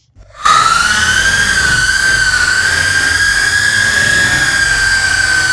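A person's long, loud, high-pitched scream, rising briefly at the onset and then held at an almost steady pitch; it starts about half a second in and does not break.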